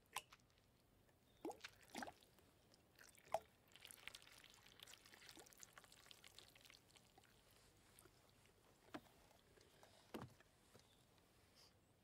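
Thick milk poured from a paper carton into a tall glass: a faint, soft pour lasting about three seconds near the middle. Several small clicks and knocks of the carton and glass come before and after it, the sharpest just before the pour begins.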